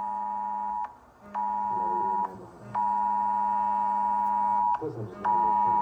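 Emergency Alert System attention signal: a steady two-tone beep with a low hum beneath it, chopped into stretches of about one to two seconds that start and stop abruptly with a click, sounding three times and starting a fourth near the end.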